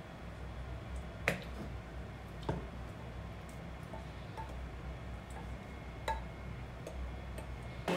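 Cooked burdock and its liquid being poured from a pot into a plastic hand-blender beaker, a wooden spatula scraping and pushing the food out, with a few light clicks and knocks of utensil against pot and beaker.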